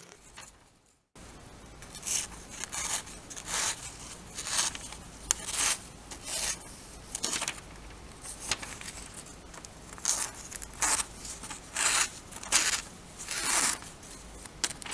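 Freshly sharpened paring knife slicing through glossy magazine paper, about twenty short crisp cuts at roughly two a second. The cuts are a sharpness test of the new edge.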